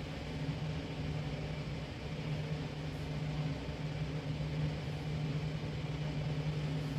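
Steady low hum of a running motor with a hiss over it, unchanging throughout, with no distinct knocks or clicks.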